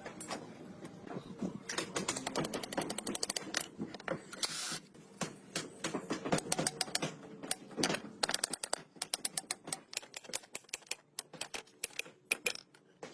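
Rapid, irregular clicking and tapping, with a brief hiss about four and a half seconds in.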